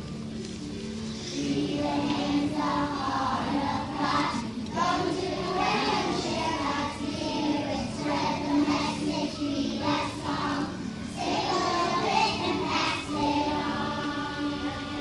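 A group of preschool children singing together over musical accompaniment.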